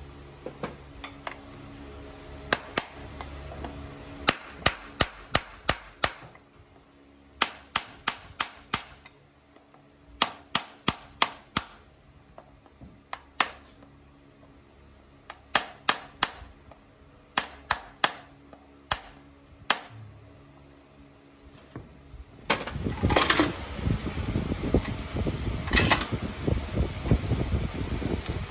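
A farrier's driving hammer tapping horseshoe nails through a steel shoe and leather wedge pad into a horse's hoof wall: sharp, ringing taps in quick runs of two to six, with short pauses between nails. From about three-quarters of the way through, a louder, steady rushing noise comes in under further knocks.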